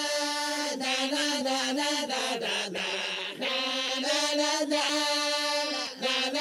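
Background music with chant-like voices held over a steady drone note, dipping briefly about halfway through.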